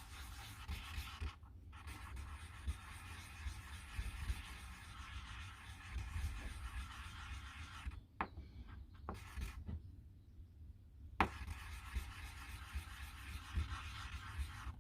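Sanding a glow-in-the-dark resin pendant, a steady rubbing hiss. It pauses briefly about a second and a half in, then stops for about three seconds a little past halfway, when a few light knocks are heard, before the sanding resumes.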